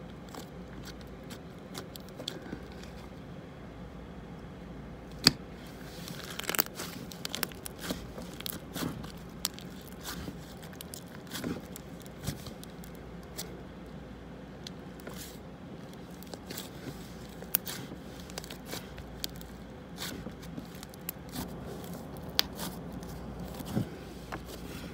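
Butter slime being kneaded and stretched in the hands close to the microphone: scattered sticky clicks and crackles, with one sharp click about five seconds in.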